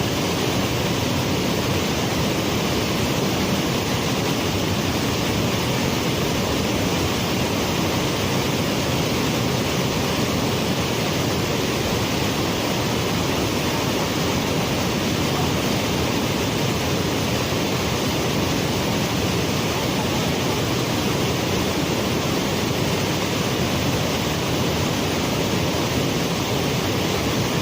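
Waterfall: water pouring down in a steady, unbroken rush that does not change.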